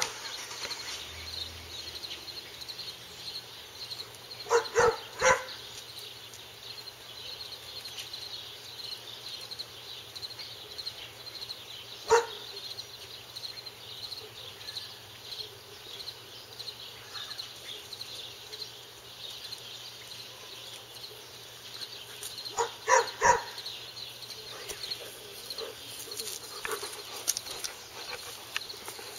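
A dog barking in short bursts: three quick barks about five seconds in, a single bark around twelve seconds, and another quick run of three or four barks a little after twenty-two seconds, with a few fainter ones near the end. A faint steady high-pitched trilling continues in the background.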